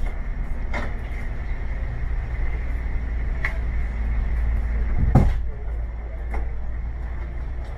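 Steady low engine rumble inside a moving bus, with scattered rattles and knocks from the bus's fittings and one heavier clunk about five seconds in.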